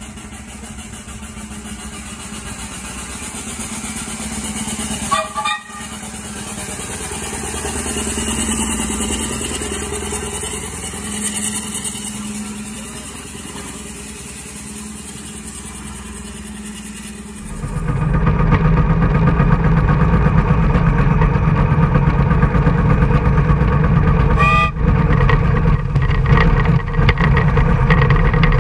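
8-inch scale Burrell Gold Medal steam tractor running along a road with steam hissing, and a short whistle toot about five seconds in. From about 17 seconds it is heard from the driving seat as a much louder, steady low rumble, with another short toot near the end.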